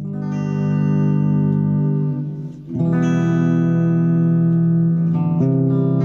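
Guitar played through an acoustic-simulation patch on a Zoom G1X Four multi-effects pedal: three chords, each strummed and left to ring, the second coming about halfway through and the third near the end.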